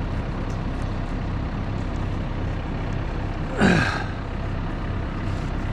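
Engine running steadily at idle, with a short loud swish falling sharply in pitch about three and a half seconds in.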